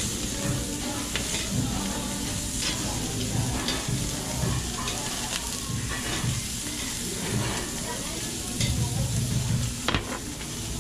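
Beef skirt (anchangsal) sizzling on a tabletop Korean barbecue grill plate, a steady frying hiss with a few sharp clicks as pieces are laid down and moved on the plate.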